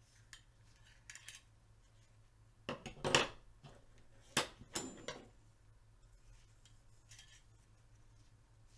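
Gun parts and cleaning tools clinking and knocking as they are handled and set down on a bench. A short cluster of sharp clatters comes about three to five seconds in; the rest is faint handling noise.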